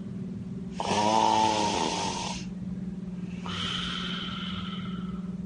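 A woman snoring loudly in her sleep: two long snores, one about a second in and one about three and a half seconds in, the first with a rattling tone, the second breathier with a thin whistling edge. The doctor takes this whistle at the end of the snore, like asthma, as a sign of the tongue and soft palate meeting at the back of the throat.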